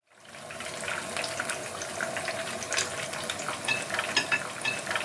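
Battered shrimp deep-frying in hot oil in a small frying pan: a steady sizzle thick with irregular crackling pops, fading in just at the start.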